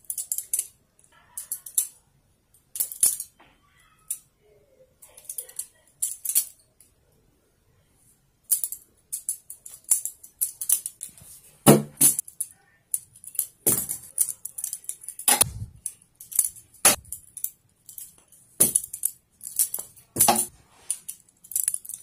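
Practice balisong (butterfly knife) being flipped: bursts of metallic clicking and rattling as the handles and trainer blade swing and clack together. The bursts are sparse at first, stop for about a second and a half, then come thick and fast, with a few heavier knocks among them.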